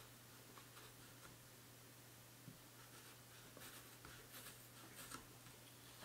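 Faint scratching of a Victorinox RangerWood 55 pocket knife blade cutting and peeling an apple: a few soft scrapes, most of them in the second half, over a low steady hum.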